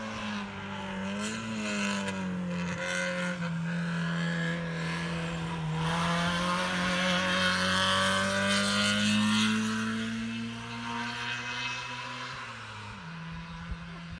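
Hill-climb race car's engine running hard, its pitch stepping up and down between gears, growing louder to a peak about nine seconds in and then fading away.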